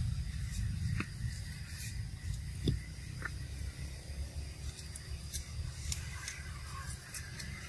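Long-tailed macaques biting and chewing cucumbers: scattered short crisp crunches and clicks over a steady low rumble.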